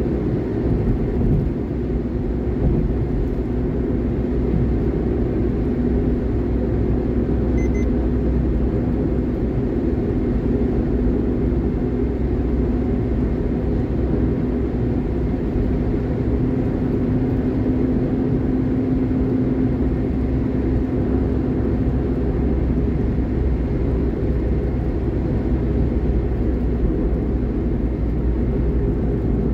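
Steady engine and road noise of a moving vehicle, with a low engine drone that grows a little stronger midway.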